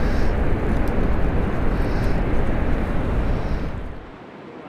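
Wind buffeting an action camera's microphone: a loud, ragged low rumble that drops to a quieter steady hiss about four seconds in.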